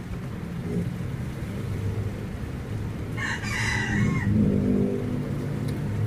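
A rooster crowing once, about a second long, three seconds in, over a low steady hum.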